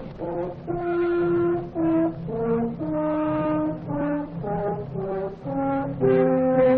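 Film score music: a brass-led melody of held and shorter notes, changing pitch about once or twice a second over a low sustained accompaniment.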